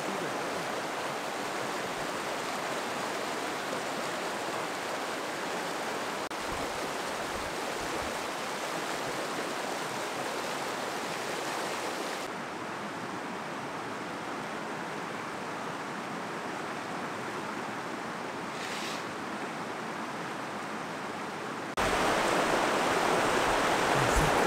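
Steady rushing of flowing water from a nearby mountain stream, an even hiss without distinct events. It drops a little in level about halfway through and grows louder again near the end.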